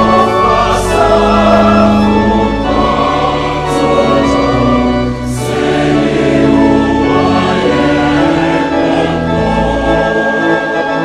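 Choir singing a gospel song with instrumental accompaniment, voices holding long notes.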